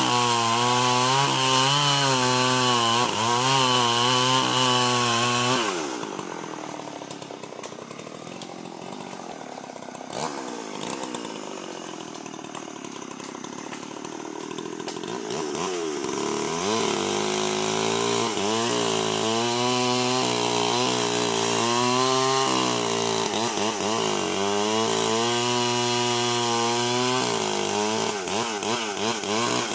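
Old two-stroke chainsaw cutting albasia wood. It runs at high revs with a wavering pitch as the chain bites for about five seconds, drops back to a quieter idle for around ten seconds, then revs up again and keeps cutting to the end.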